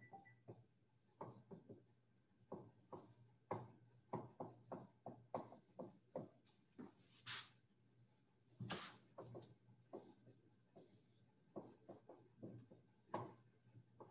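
Dry-erase marker writing on a whiteboard: faint, irregular squeaks and taps of short pen strokes, with two stronger strokes about seven and nine seconds in.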